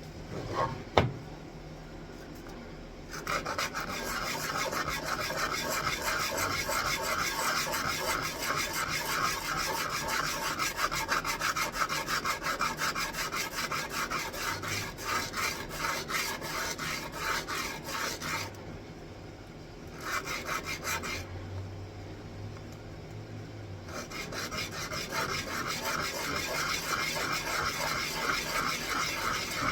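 Wooden pegs being sanded by hand with quick, steady back-and-forth rasping strokes, stopping twice for a moment before starting again. A single knock comes about a second in, before the sanding begins.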